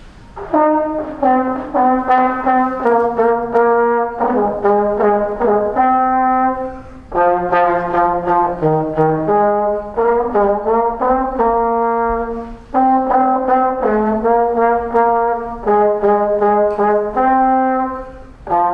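Trombone and sousaphone playing a tune together, note by note in phrases of about six seconds with short breaks for breath between them.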